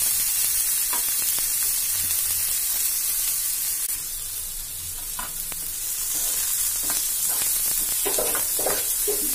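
Chopped onions and cumin seeds sizzling steadily in hot oil in a metal frying pan as they are sautéed until soft. A steel ladle stirs them, with scattered scrapes and clicks against the pan that come more often near the end.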